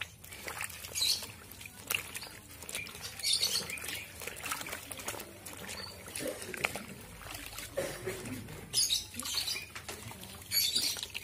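Cloth bird-cage cover being kneaded and pressed down in a bucket of water: irregular splashes and sloshing as it is soaked through.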